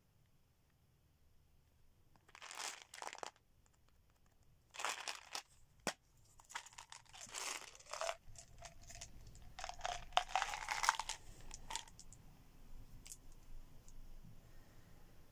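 Plastic bottle of Mentos gum being opened and handled. A couple of short spells of rustling come first, then a sharp click about six seconds in, then a longer stretch of rustling as a gum pellet is tipped out into the hand, dying down near the end.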